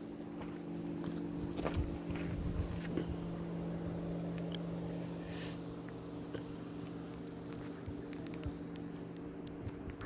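A car engine idling with a steady low hum, with a few faint clicks and taps on top.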